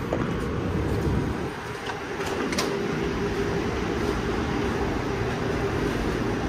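Light rail car standing at a station: a click as the door-open button is pressed, and the doors open. The car's equipment then gives off a steady hum once inside.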